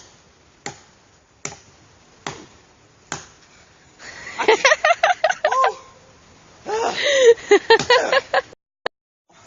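Five sharp knocks, evenly spaced a little under a second apart, as wood is struck while breaking up firewood; then a person's voice laughing and squealing in two stretches without words.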